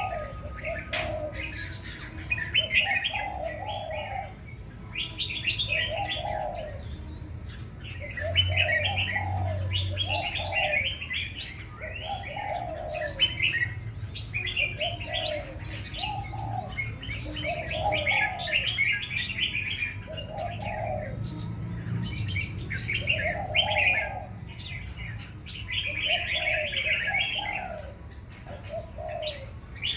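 Doves cooing over and over, a low call about every couple of seconds, with smaller birds chirping rapidly and higher at the same time.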